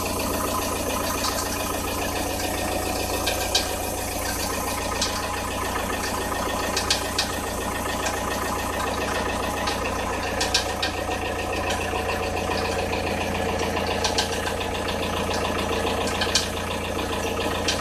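Audi A6 C4 1.9 TDI four-cylinder turbodiesel idling cold, with sharp knocks at irregular intervals, a few seconds apart and some in quick pairs. The uneven knock comes from around the timing belt, and its cause is unknown; the tensioner rollers have been checked and are fine.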